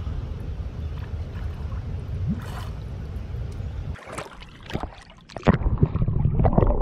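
Water splashing and sloshing around a swimmer, heard on a chest-mounted camera that goes under the surface about five seconds in, after which the sound turns muffled and loses its high end. Before that, a steady low rushing rumble.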